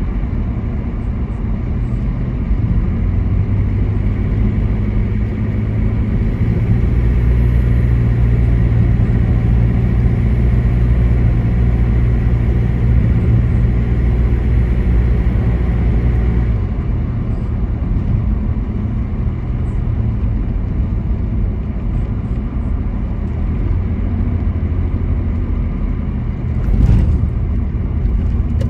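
Steady engine and tyre rumble heard from inside a moving car's cabin at freeway speed. The rumble eases a little past the halfway point, and one short louder sound comes near the end.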